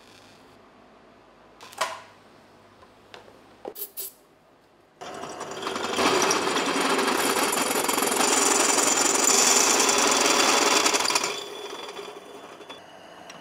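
A step drill bit in a powered spindle cutting through a metal tube: a few short clicks and knocks, then about five seconds in a loud, grinding chatter of the bit biting the metal, which runs for about six seconds and then fades.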